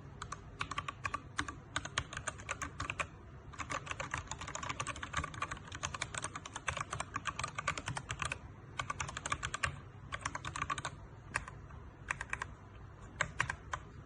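Typing on a mechanical keyboard fitted with XDA-profile PBT keycaps: quick runs of key clacks broken by short pauses.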